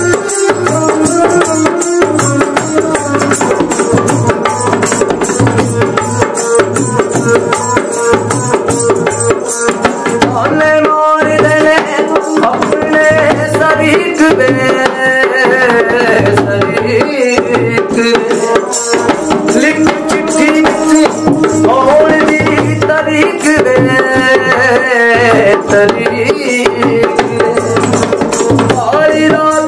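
Dholak played by hand in a steady rhythm under a bowed folk fiddle playing a gliding melody: an instrumental stretch of a folk song. The music breaks off briefly about eleven seconds in.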